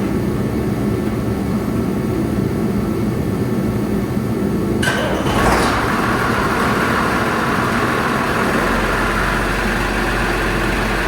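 Case IH tractor engine started about five seconds in, catching right away and then running steadily. It starts as it should now that the no-crank fault, traced to a sensor and a connector, has been fixed.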